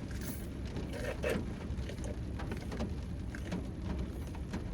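Rain falling steadily, with a low rumble underneath and a few faint taps.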